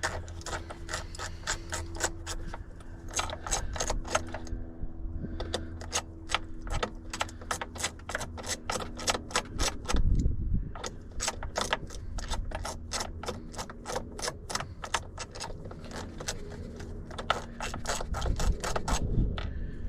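A ratchet clicking in quick, even runs as T25 Torx screws are backed out of the plastic lower steering column cover of a 2006 Chevy Silverado, with a couple of short pauses and a thump about halfway through.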